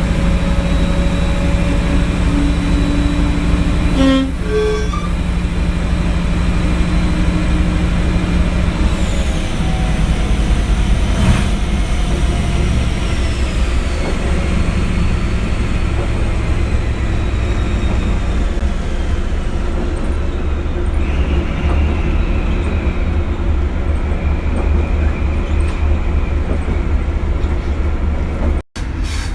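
Prototype HST power car 41001's Paxman Valenta diesel engine running loud and steady, with a high turbo whine that falls in pitch from about nine seconds in. The sound drops out for an instant near the end.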